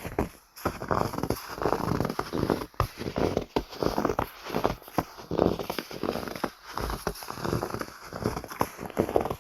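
Footsteps crunching through snow at a steady walking pace, each step a short crunchy burst.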